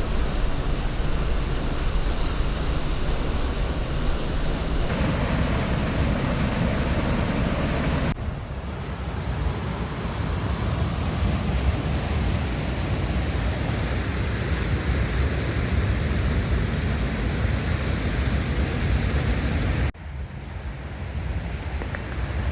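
Steady rushing water of a rain-swollen river running high, an even hiss with no tones in it. It changes abruptly about 5, 8 and 20 seconds in.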